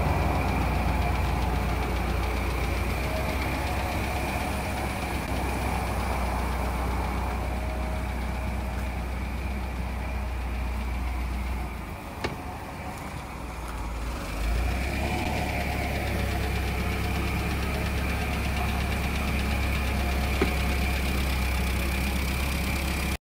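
Forklift engine running steadily with a low hum. It drops quieter for about two seconds near the middle, then comes back.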